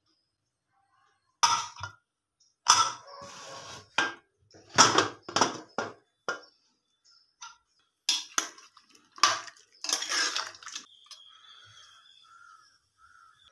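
Steel kitchenware knocking and scraping: a metal pot's lid and a steel spoon knocking against the pot in a series of sharp clanks. Near the end a fainter, steadier sound follows.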